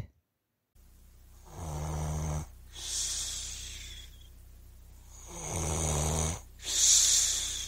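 Snoring, two breaths: each a low rasping snore on the in-breath followed by a hissing out-breath with a faint whistle.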